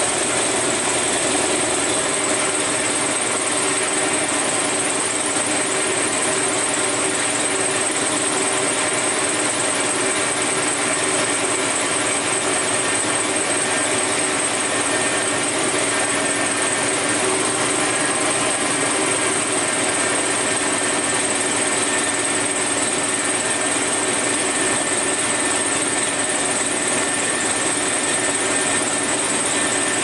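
A 1960s Chevrolet pickup's engine idling steadily, with a steady high whine over it.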